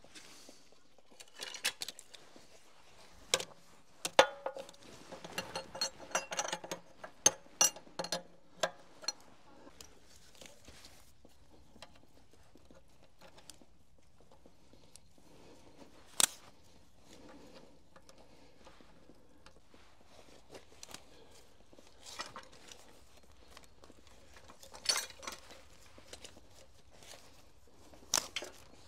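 Metal tools and hydraulic hose fittings being handled: a quick run of clinks and knocks in the first several seconds, then a few isolated clicks and taps.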